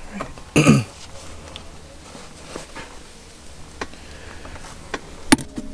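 Scattered small clicks and knocks of shift-knob parts being handled, with one short louder noise about half a second in and a sharp click near the end.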